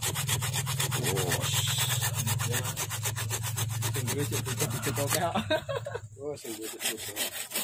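Folding pruning saw cutting through a thick branch of a kimeng (Chinese banyan) bonsai in rapid, even back-and-forth strokes. The sawing stops about five seconds in.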